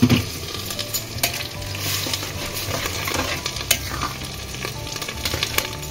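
Steel ladle stirring thin moong dal with spinach in a hammered steel kadai: wet scraping with a few sharp clinks of metal on the pan, the strongest right at the start, over a steady low hiss of the dal cooking on the heat.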